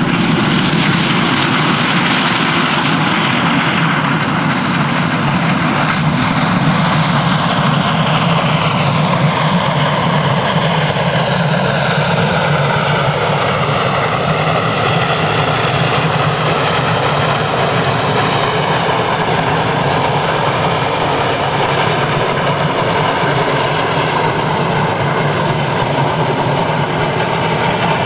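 Steam locomotive hauling a passenger train past under heavy steam, its exhaust and running gear a loud, steady rush. Several tones slide down in pitch over the first half as it passes.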